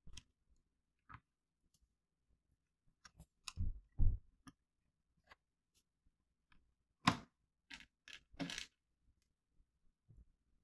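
Lego bricks being handled and pressed onto a small model: scattered sharp plastic clicks and snaps, with two low thumps a little past the middle and a quick run of clicks about seven to eight and a half seconds in.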